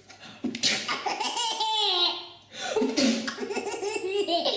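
A baby laughing in two hearty fits, each set off by a sudden loud sneeze, about two seconds apart.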